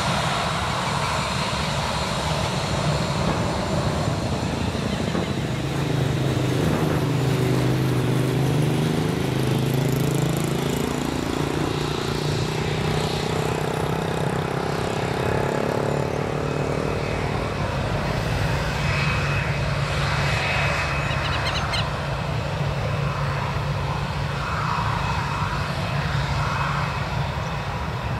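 Boeing 737-700's CFM56 jet engines running steadily as the airliner taxis along the runway. Between about 6 and 17 seconds in, a humming tone dips and then settles while sweeping tones pass over it as the aircraft moves.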